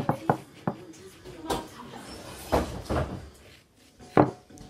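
Knife slicing a lemon on a ceramic plate, the blade knocking against the plate in a few irregular sharp clicks, the loudest near the end.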